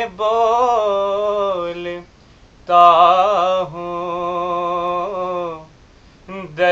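A man singing a naat solo and unaccompanied, drawing out the words in two long phrases of held, wavering notes with short pauses for breath between them.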